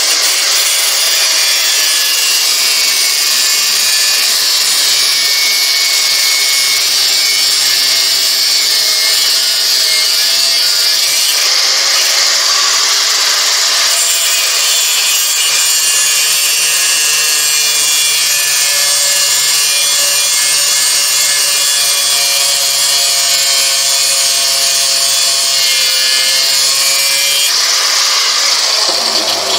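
Angle grinder running under load, cutting the corners off a high-carbon steel file held in a vise. It winds down near the end.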